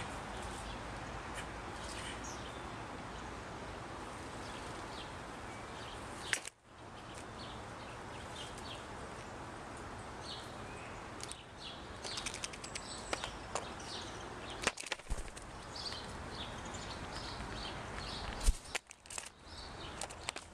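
Blue jay landing on a plastic ground-feeder dish and picking through in-shell peanuts, giving scattered clicks and knocks of shells against the dish, with one louder knock near the end. Faint distant birdsong and a steady outdoor background run under it.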